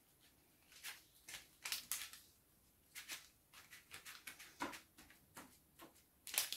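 Faint, irregular rustles and soft taps of tracing paper crinkling as a wet tea bag is pressed and dabbed across it by hand.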